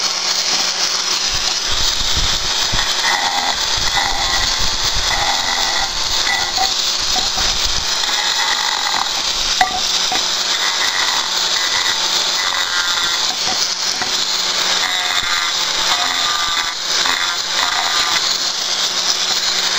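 Small angle grinder with a diamond disc running steadily, grinding down the back of a ceramic tile. Its high whine is overlaid by a rasping grind that comes and goes as the disc is worked against the tile.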